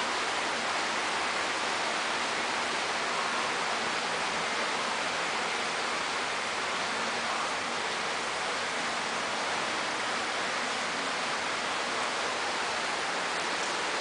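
Steady, even hiss with no distinct events in it.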